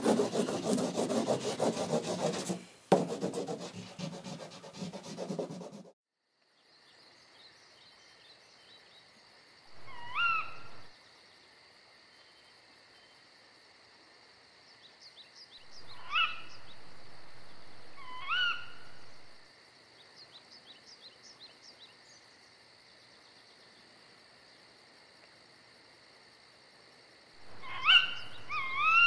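A teacher's pencil sharpener grinding a pencil for about six seconds, with a click halfway through. After it, faint steady insect-like night ambience with a few short rising calls, the loudest near the end.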